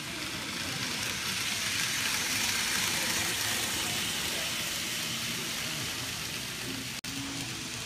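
N-gauge model of a Nose Electric Railway 5100 series train running along the layout track: a steady rushing hiss of wheels and motor that swells as the train passes, loudest about two to three seconds in, then eases off.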